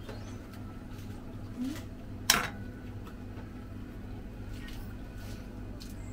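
One sharp knock of a cooking utensil about two seconds in, over a steady low hum, as a food-stall vendor assembles a stuffed flatbread.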